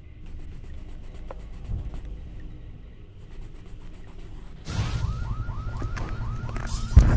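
A low rumble that grows louder about two-thirds of the way in, when a siren starts a rapid yelping wail of short rising tones, about five a second. A heavy thump near the end is the loudest sound.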